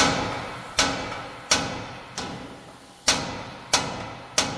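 Hammer blows striking a steering knuckle, about seven in all at roughly two-thirds of a second apart, each ringing briefly. The knuckle is being struck to shock the outer tie rod end's stud loose from it.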